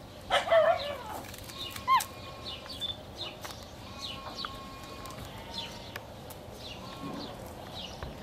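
Small birds chirping over and over, in short falling notes. A loud, wavering cry comes about half a second in, and a short rising-then-falling whistle-like call about two seconds in.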